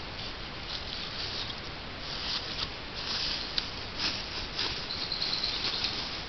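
Rustling of a bundle of freshly pulled leafy plants and a black plastic bag as the plants are pushed into the bag, in uneven bursts.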